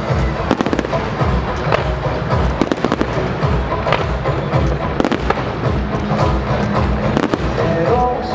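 Fireworks going off over loud show music: many sharp bangs and crackles in quick succession.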